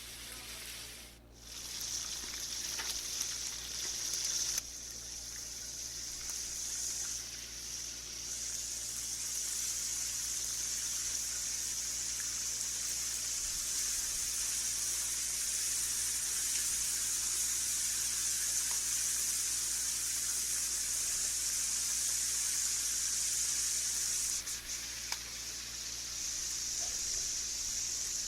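Chicken pieces frying in hot ghee, with a steady sizzle as they brown. It dips briefly about a second in, then holds level.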